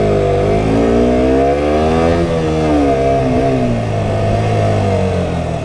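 KTM RC 125's single-cylinder four-stroke engine accelerating hard, revs climbing and dropping sharply about two seconds in and again a little past three seconds as it shifts up. The revs then fall away near the end as the throttle closes.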